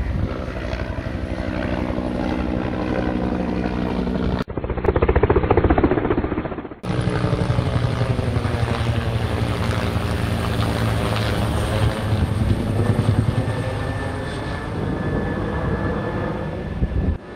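Military helicopter flying low overhead: a loud, steady rotor and engine drone whose pitch slowly shifts as it moves across. It is louder for a couple of seconds about four seconds in.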